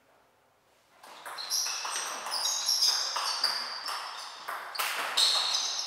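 Table tennis rally starting about a second in: the celluloid ball clicking off the bats and the table in quick succession, with rubber-soled shoes squeaking on the hall floor as the players move.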